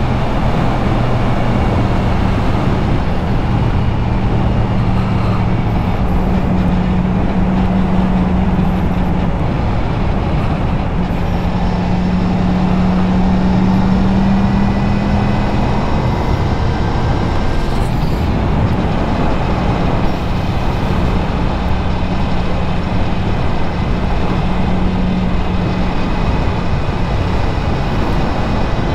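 Motorcycle engine running at a steady road speed under steady wind and road noise, its pitch drifting gently up and down with the throttle.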